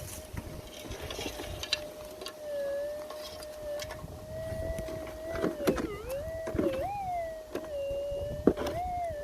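Minelab GPZ 7000 metal detector's steady threshold hum, its pitch wobbling up and down a few times around the middle and again near the end, with scattered sharp clicks and scrapes of digging in hard ground.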